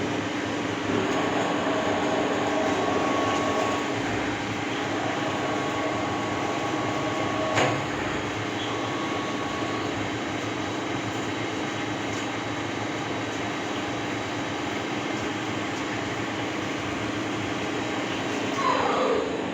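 ACE LT-2 CNC lathe running with a steady mechanical hum. There is a sharp click about halfway through, and a falling whine near the end.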